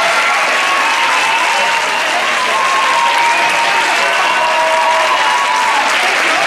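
Theatre audience applauding, loud and steady.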